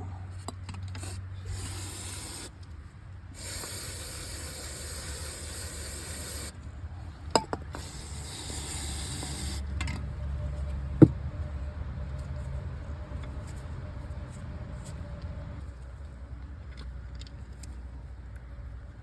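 Hissing spray in three bursts, the middle one about three seconds long, with two sharp clicks in between, over a steady low rumble.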